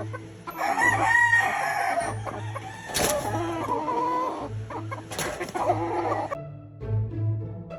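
Roosters crowing and clucking, several crows in a row with a long drawn-out one about three seconds in.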